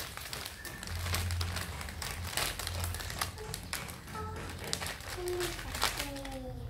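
Plastic crinkling and crackling in short, irregular bursts as kittens move about in it, with some soft low thumps.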